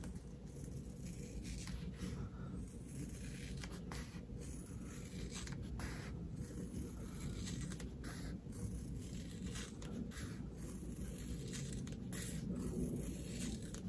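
Scissors snipping through stitched embroidered vinyl in a run of short, irregular cuts, faint over a low room hum.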